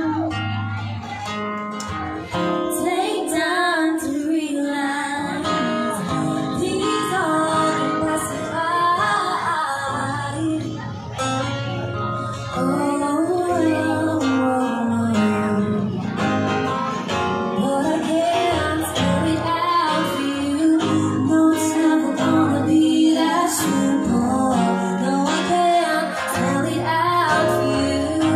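A song: acoustic guitar with a woman singing.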